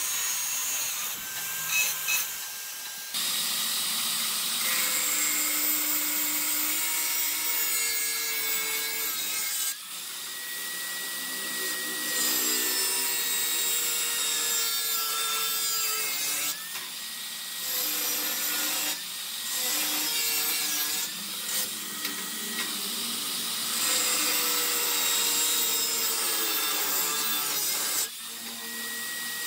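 Angle grinder with a cut-off disc cutting square steel tubing: a steady hiss with a high whine that sags and recovers in pitch as the disc bites, in several runs with short breaks between cuts.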